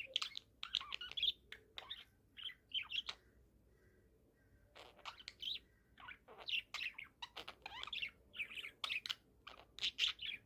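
Young budgerigar, about four months old, chirping in quick runs of short, high chirps, with a pause of about a second and a half a few seconds in.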